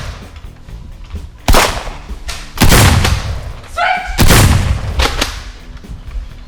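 Gunshot sound effects: three loud booming shots a second or so apart, each fading out over about a second. A short shout comes just before the third.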